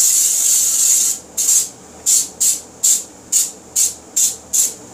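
Aerosol cooking spray hissing from the can into a pie pan: one long spray of about a second, then eight short squirts in quick succession.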